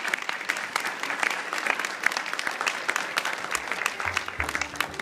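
Dinner audience applauding steadily at the end of a talk, many hands clapping. Music starts quietly underneath near the end.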